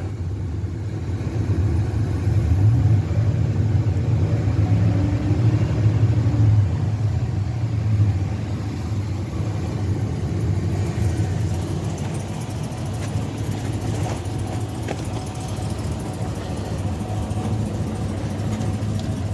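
Rebuilt 5.3-litre LS V8 engine of a 2005 Chevrolet Silverado running through its muffler, with new exhaust manifold gaskets fitted. It is a little louder for several seconds near the start, then settles to a steady idle.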